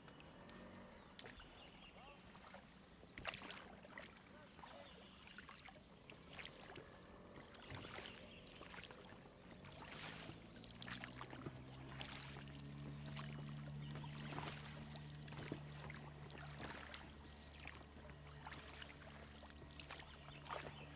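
Oars working a rowboat: scattered splashes and knocks of the oars on the water and the hull. About ten seconds in, a motor's hum comes up, rising in pitch for a few seconds and then holding steady.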